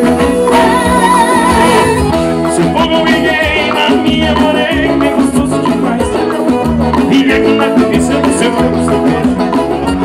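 Live forró band music through the concert sound system: accordion over a steady dance beat, with a male singer on the microphone.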